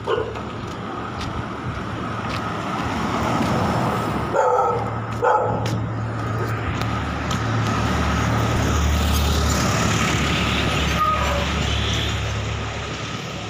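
A motor vehicle passing on the highway: engine rumble and road noise swell over several seconds and then ease off. A dog barks twice in quick succession about four and a half seconds in.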